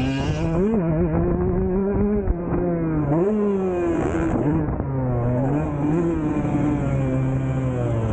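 Husqvarna TC 125 two-stroke motocross bike engine revving under throttle, its pitch climbing sharply about a second in and again about three seconds in, dropping off briefly near the middle, then holding steadier.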